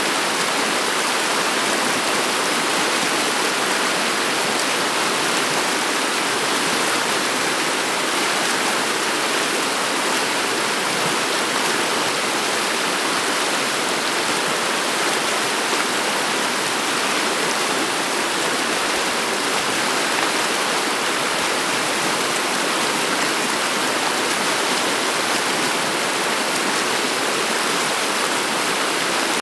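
Shallow water of the river Steyr flowing over a stony riverbed: a steady, even rush of water with little deep rumble.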